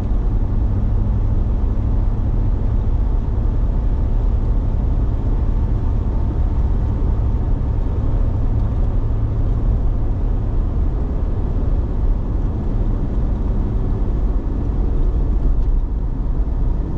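Steady road and engine noise inside a moving car: an even low rumble with tyre hiss while cruising on the highway.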